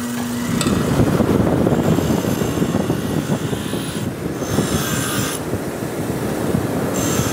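Bench grinder wheel grinding rust and scale off the steel tang of an antique Bowie knife: a loud, steady rough grinding, with harsher high scraping stretches about four seconds in and again near the end.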